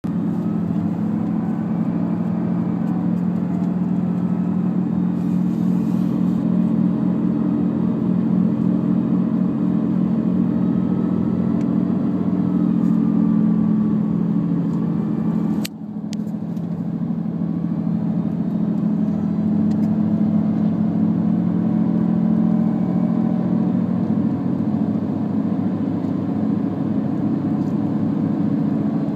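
Nissan Altima making a siren-like noise: a wavering tone that slowly rises and falls over a steady low drone. A sharp click about halfway through, with a brief dip in the sound.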